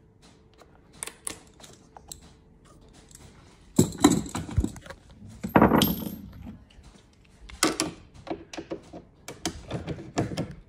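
A hand driver clicking and rattling as T20 Torx screws are undone from a car tailgate, a string of short sharp clicks. Two louder handling bumps and scrapes come about four and six seconds in.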